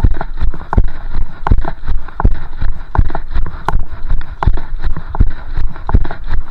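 Running footsteps of running shoes striking wet, slushy pavement in an even stride of nearly three footfalls a second, every other footfall louder.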